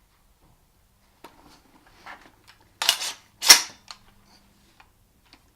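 A few light clicks, then two loud metallic clacks about half a second apart, the second the loudest, from the assembled AR-15 rifle being handled.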